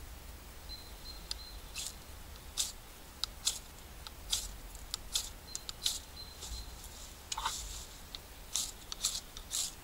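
Knife scraped down a ferrocerium rod to throw sparks: a string of short, sharp, high-pitched scrapes at irregular spacing, starting about two seconds in. The sparks are not lighting the burn gel.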